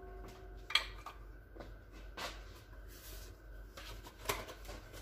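A stainless steel mixing bowl rings faintly and dies away in the first second. A few soft knocks and rubbing sounds of kitchen handling follow, the sharpest about a second in and another near the end.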